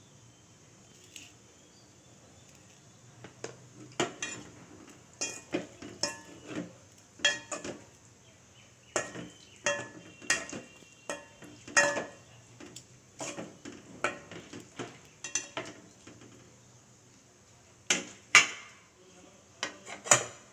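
A metal spoon stirring a thick curry in a metal pot, clinking and scraping against the pot's sides and bottom in irregular, ringing knocks. It starts a few seconds in, and two more knocks come near the end after a short pause.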